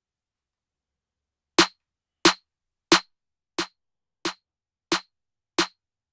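Roland Verselab MV-1 groovebox starting playback with a steady click on every beat, about one and a half clicks a second, beginning about a second and a half in. The identical sharp clicks run through two bars, like a count-in before the song's music comes in.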